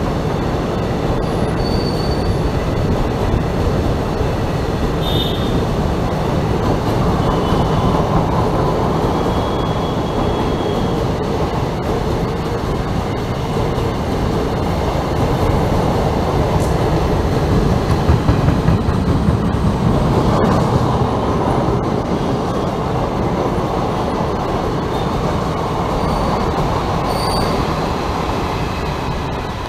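Indian Railways passenger coaches rolling past on the track: a steady rumble and rattle of wheels on the rails, with a few brief, faint wheel squeals.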